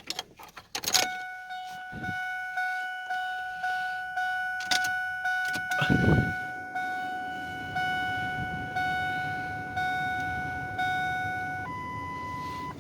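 Keys jangle at the ignition, then the truck's warning chime pings steadily about twice a second. About six seconds in, the 2003 Ford F-150's 5.4-litre Triton V8 cranks briefly and catches, settling into a steady idle under the chime. Near the end the chime changes to a higher, steady tone.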